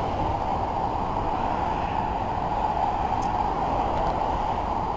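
Steady traffic noise from cars on the highway below: a continuous rush of tyres and engines with no breaks.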